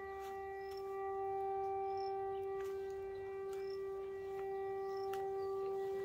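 A steady held tone with overtones that slowly swells and fades in loudness, with faint ticks now and then.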